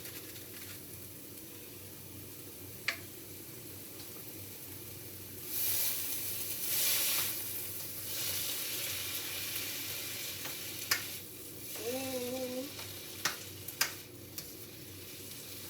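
Stir-fry vegetables and fresh garlic sizzling in hot oil in a pan, swelling louder for a couple of seconds about a third of the way in. There are a few sharp clicks and one brief pitched sound along the way.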